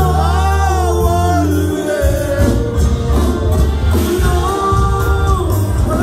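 Norteño band music with singing: held bass notes under the vocal line for about the first two seconds, then a quicker, bouncing bass rhythm.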